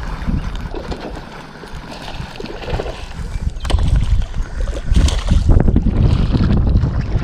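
Wind gusting across the microphone, a heavy buffeting rumble that eases about a second and a half in and then builds again, with a couple of short knocks in the middle.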